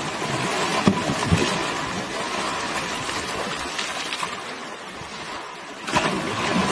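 Water splashing and sloshing as an elephant thrashes and rolls in a muddy waterhole, with heavier splashes about a second in and again near the end.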